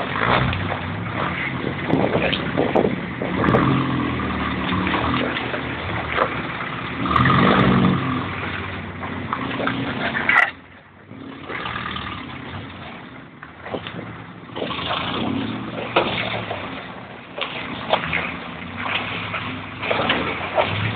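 A 4x4's engine runs at low revs while the vehicle rattles and knocks, jolting over a rocky streambed. The sound drops sharply for a moment about halfway through, then builds back.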